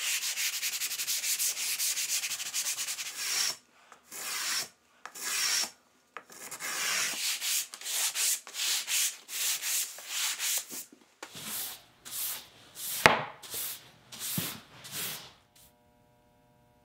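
Hand sanding with a piece of 80-grit sandpaper rubbed along the beads of a beadboard panel, tuning up the planed bead. Fast continuous rubbing for the first few seconds, then separate back-and-forth strokes about one and a half a second, with one sharper click among them, stopping shortly before the end.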